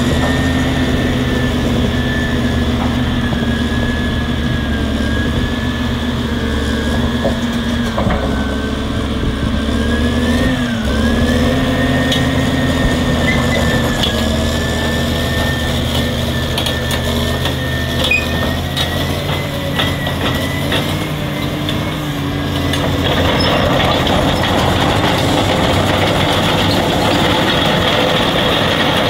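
Caterpillar D6R crawler dozer's diesel engine running as the dozer moves and turns, with a steady high whine above the engine note. A little over twenty seconds in, the sound grows louder and rougher.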